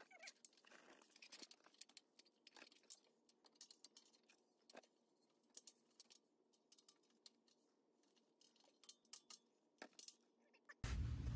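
Near silence with faint, scattered metallic clicks and clinks as the stock exhaust muffler is worked loose from its hangers.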